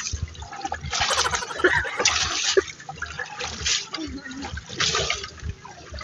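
Wooden paddle dipping and pulling through shallow water beside a small outrigger boat, a splashing stroke about once a second.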